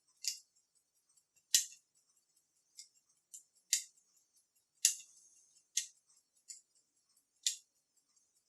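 Small, sharp mechanical clicks at irregular intervals, about ten of them, from a Panasonic personal stereo's cassette mechanism as its solenoid is fired by hand and the motor turned to step it through its modes.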